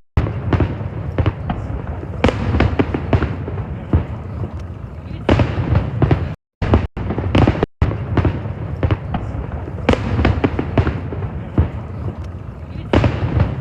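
A fireworks display with shells bursting in quick succession: many sharp bangs over a continuous low rumble. The sound cuts out briefly twice about halfway through.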